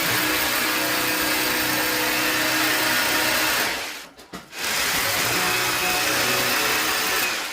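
Electric drill running in two long runs, stopping briefly about four seconds in and starting again.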